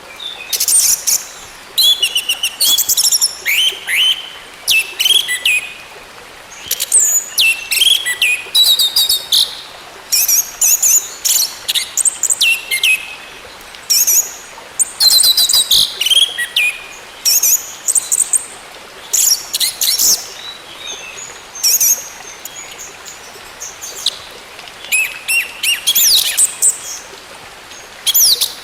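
Orange-headed thrush singing: quick, varied phrases of high whistles, slurred notes and trills, coming in short bursts with brief pauses between them.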